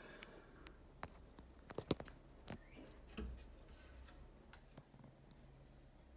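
Faint handling noise: scattered light clicks and knocks, the sharpest just before two seconds in and a duller thump about a second later, over a low steady hum.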